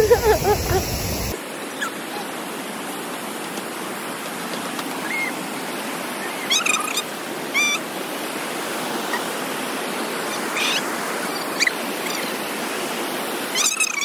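Steady rush of a shallow river running over rocks and small rapids, with a few short high chirps scattered through it.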